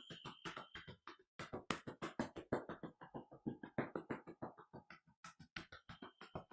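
Hands rapidly tapping on the thighs in a steady rhythm, about six or seven slaps a second, with brief pauses about a second in and again near five seconds.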